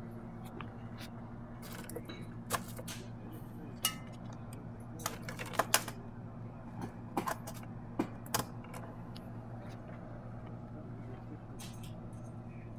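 A steady low electrical mains hum, with scattered sharp clicks and taps, the loudest cluster about five to six seconds in.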